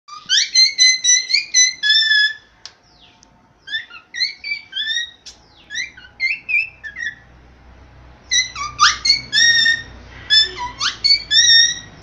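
Cockatiel whistling its song: three runs of quick, high whistled notes, several sweeping upward in pitch, with short pauses between the runs.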